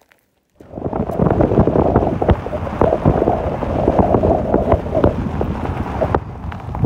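Wind buffeting the camera microphone: a loud, rumbling noise full of crackles that starts abruptly about half a second in.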